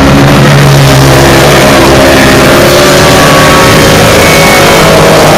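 Several racing kart engines running flat out around the track, their pitches overlapping and slowly rising and falling as they lap. Loud throughout.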